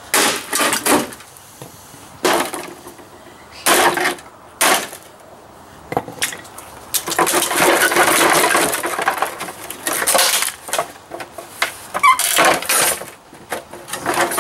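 Hammer blows on the plastic housing of a pool pump, about six separate knocks over the first six seconds. Then a few seconds of continuous cracking and ripping as the broken housing is pried apart by hand, with a couple more knocks near the end.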